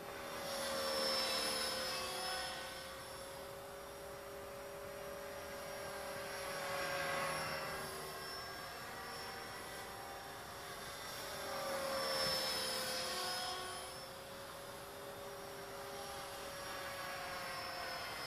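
Blade 450 X electric RC helicopter in flight, its homemade main rotor blades and motor giving a steady whine and whir. The sound swells louder three times and falls back between.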